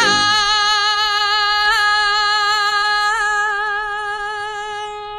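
A singer's voice holding one long, high sung note in a Spanish copla, with a slight waver here and there, slowly getting quieter towards the end.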